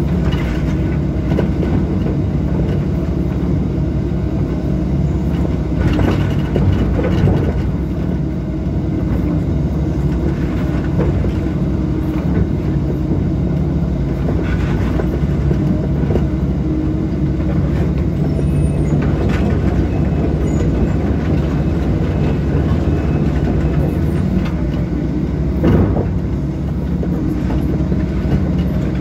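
Link-Belt 160 hydraulic excavator running steadily with a low diesel hum, with a few light knocks scattered through it.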